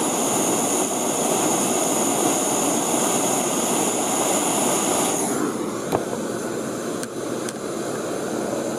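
Handheld gas torch burning with a steady hiss as it heats a thread-locked screw to soften the Loctite. It shuts off about five seconds in, followed by a few light clicks.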